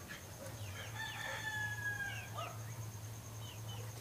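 A rooster crowing once, a long call about a second in that holds for around a second and a half, with short bird chirps around it over a low steady hum.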